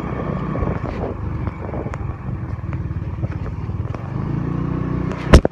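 Moped engine running while riding, its pitch wavering with the throttle. A sharp knock about five seconds in is the loudest sound.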